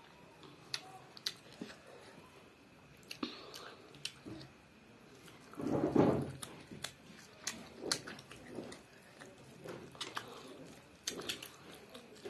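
Close-up eating sounds of a child chewing a mouthful of rice and curry: scattered wet lip smacks and mouth clicks. About halfway through comes one louder, muffled sound lasting about a second.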